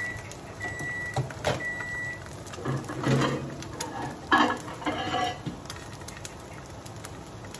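A kitchen appliance beeping: a steady high tone about half a second long, repeating about once a second, stops about two seconds in. Then a plate and crockery clatter and knock twice.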